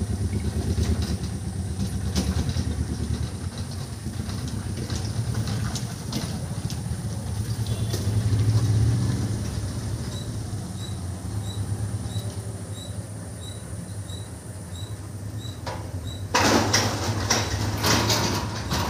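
Low, steady engine hum of road vehicles at a railway level crossing. From about halfway through, a high warning beep repeats about twice a second as the boom barriers are lowered. Near the end a loud rushing noise rises over it.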